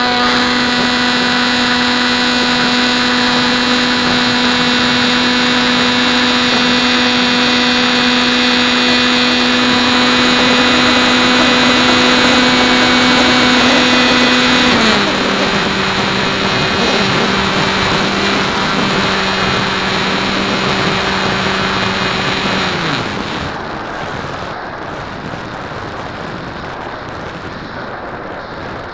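HobbyKing Bixler's electric motor and propeller, heard through the onboard camera, droning at a steady pitch. About halfway through the pitch steps down as the throttle comes back. Near the end the motor cuts off, leaving only wind noise.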